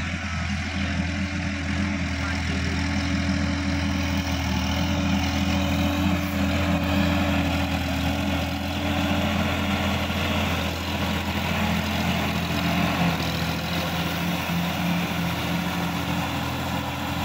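Sonalika DI-50 RX tractor's diesel engine running steadily under load while it pulls a rotary tiller through wet, muddy soil.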